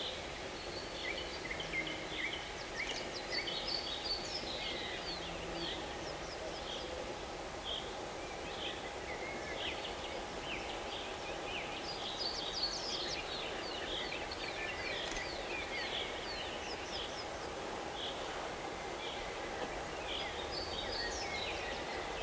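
Small birds chirping and singing, many short high calls scattered throughout, over a steady faint background hiss of open-air ambience.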